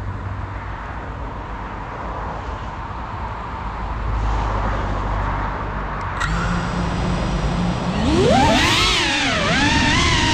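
A steady rush of noise, then about six seconds in a click and the GEPRC CineLog35 cinewhoop's brushless motors begin spinning at idle with a steady hum and high whine. About two seconds later they spin up for takeoff, the pitch rising steeply and then wavering up and down with the throttle.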